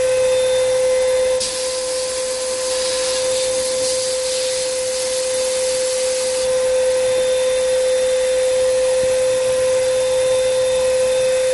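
Sandblasting cabinet in use, blasting with iron oxide media at 90 psi: a steady air-and-grit hiss over a constant high motor whine. The hiss changes about a second and a half in, briefly gets quieter, and shifts again around six and a half seconds in.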